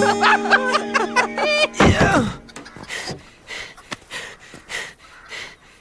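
Cartoon soundtrack: music with held notes under gliding, laughter-like voices for about two seconds, ending with a falling glide. After that come only a few soft, short noises.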